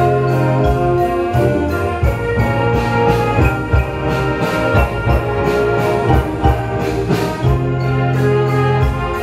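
Wind band playing a rock arrangement live: sustained brass chords and a low bass line over a steady drum beat.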